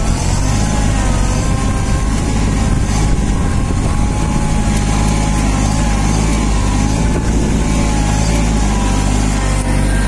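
Kubota A211 mini tractor's diesel engine running steadily under load as the tractor pulls an inter-row weeder through a field, heard close up from the driver's seat.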